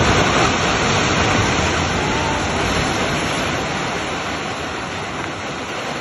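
Continuous rushing roar of a multi-storey building collapsing down a hillside, its concrete and rubble crashing and sliding, easing off slightly toward the end.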